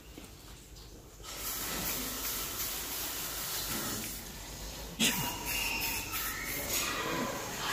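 iGroom Freeze It aerosol hairspray hissing out of the can onto a poodle's coat in long sprays: the first starts about a second in, and a second begins sharply about five seconds in.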